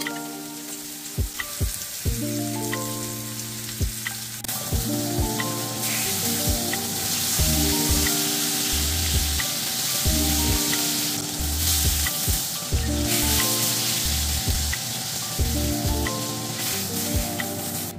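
Lamb chops sizzling as they fry in hot olive oil in a frying pan, the sizzle loudest in the middle. Background music with a steady beat plays over it.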